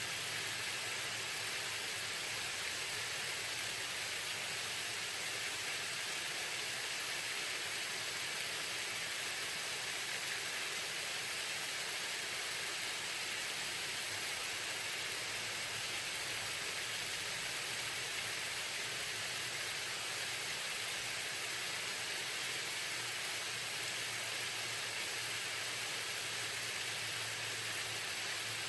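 Waterfall: a steady rush of falling and splashing water, with most of its sound in the high, hissing range.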